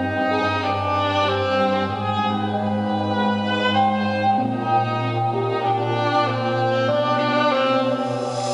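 Violin played with the bow, a melody of held and changing notes over low sustained backing notes that shift pitch a few times. A hiss swells near the end.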